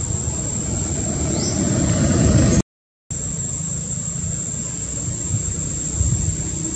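Steady outdoor forest background: a low rumble with a thin, steady high-pitched insect drone over it. The sound drops out completely for about half a second, roughly two and a half seconds in.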